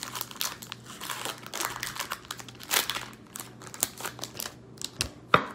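Foil wrapper of a Magic: The Gathering booster pack crinkling and crackling as it is worked open by hand, with a louder sharp crackle just before the end.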